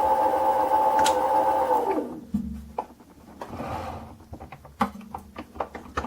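Mini lathe running with a steady whine while drilling, then switched off about two seconds in, its pitch falling as it spins down. Scattered light clicks and knocks follow.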